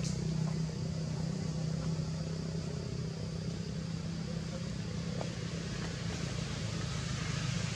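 A steady low engine hum, like a motor vehicle running, under a fainter even hiss.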